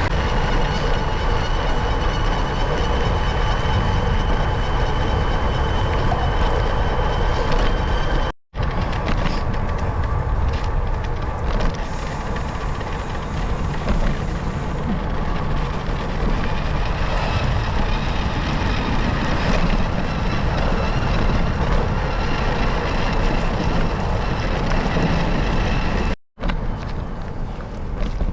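Steady road and wind noise of a bicycle ride: tyres on pavement and wind over the microphone, broken by two brief dropouts.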